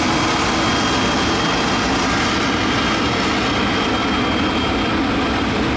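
Boeing 747-400 jumbo jet's four turbofan engines running at high power on the runway: a steady, loud jet noise with a thin high whine held on one pitch.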